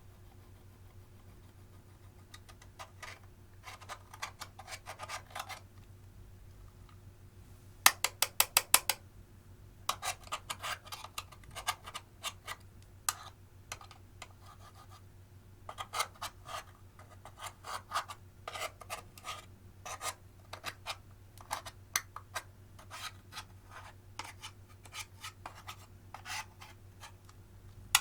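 Clear slime mixed with crushed eyeshadow being worked by hand, giving clusters of sticky clicks and crackly pops. A fast run of loud clicks about eight seconds in is the loudest moment.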